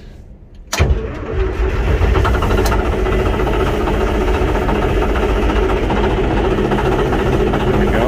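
Cat D9H bulldozer's D353 diesel engine catches suddenly about a second in as the throttle is opened, builds up over the next second, and then runs steadily and loudly.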